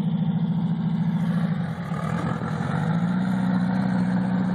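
Off-road buggy engine running steadily near idle, wavering about two seconds in and then picking up slightly in pitch.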